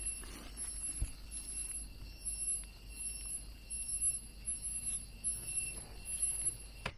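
Insects calling: a high, thin trill pulsing on and off in a regular rhythm, over a steadier, lower buzz.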